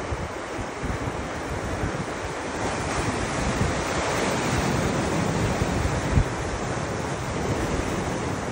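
Surf washing against the shore and wind buffeting the microphone, the wash swelling a little about halfway through.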